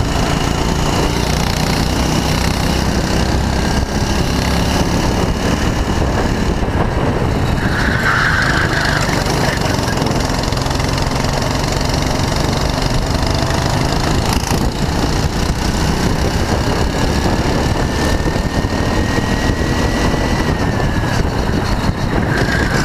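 Go-kart's small single-cylinder engine running hard through a lap, heard onboard under heavy wind and road noise. Its pitch climbs slowly on a straight and drops sharply about twenty seconds in as the kart comes off the throttle.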